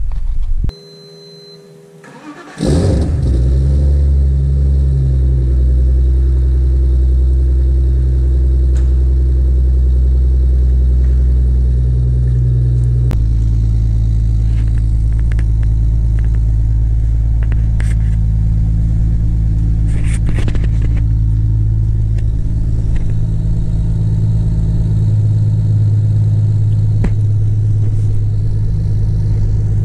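Turbocharged M52B28TU straight-six in a BMW E46 328i, breathing through an open 3-inch exhaust with a Magnaflow muffler, cold-started at −10 °C. It catches suddenly after a short quiet spell and settles into a fast cold idle. About halfway through the idle steps down to a lower, steady note.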